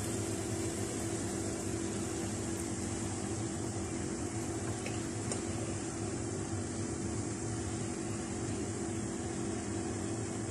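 Steady mechanical hum with a constant low tone, as of a running kitchen fan or appliance, and a few faint light ticks from a spatula spreading cooked rice in a pan.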